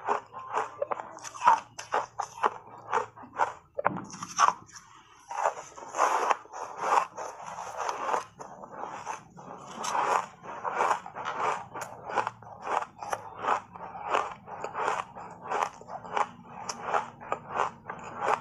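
Chunks of block ice coated in matcha powder crunched between the teeth, two or three sharp crunches a second, with a short pause about four seconds in.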